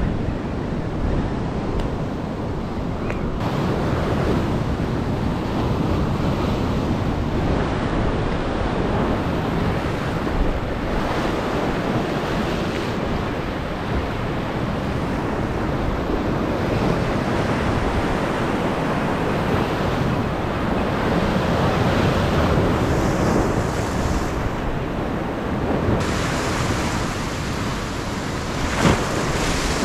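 Ocean surf breaking and washing against the rocky shore, swelling and easing, with wind buffeting the microphone. A brief sharp knock near the end.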